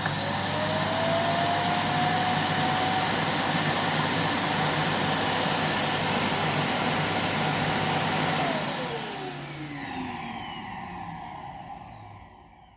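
iRobot Roomba i7+ Clean Base suction motor running steadily at full speed with a high whine, emptying the robot's dust bin into the base's bag. About eight seconds in it shuts off and spins down with a falling whine, fading out near the end.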